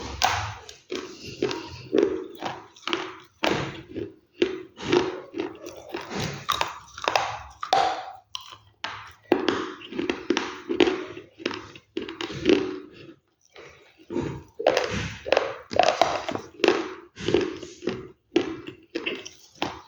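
Close-miked crunchy food being bitten and chewed: a fast run of sharp crunches in clusters, with short pauses between mouthfuls.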